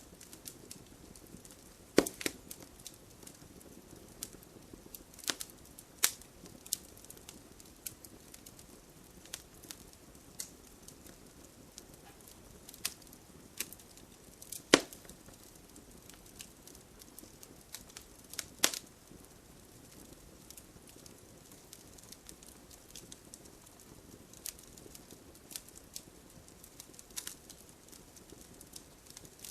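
Wood fire burning in a fireplace: a low steady hiss with irregular crackles and sharp pops, a few of them much louder than the rest.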